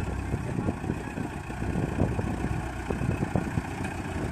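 Diesel engine of heavy road-construction machinery running steadily, with irregular knocks and crackles over it.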